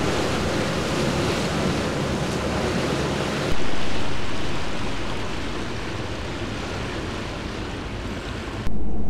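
Wind buffeting the microphone over rushing water on a moving ferry: a steady, even rush of noise. The noise changes suddenly twice, about three and a half seconds in and again near the end.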